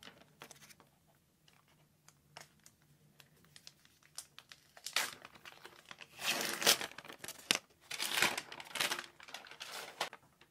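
White protective wrapping being peeled off a power bank by hand, crinkling and rustling. The first half is quiet handling with light clicks, then loud crinkling comes in two spells from about halfway through.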